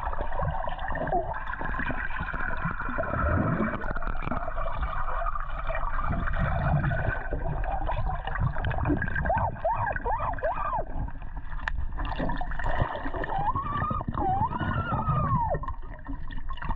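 Pool water heard from a submerged camera: a steady muffled gurgling and churning of water. Wavering, whistle-like tones rise and fall about halfway through and again near the end.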